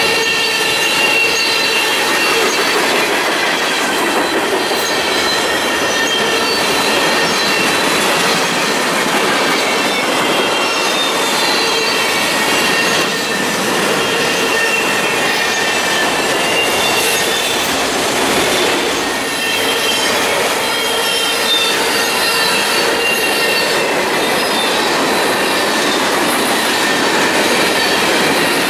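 Freight train cars rolling past close by: a steady loud rumble of steel wheels on rail, with high, wavering squeals from the wheels that come and go.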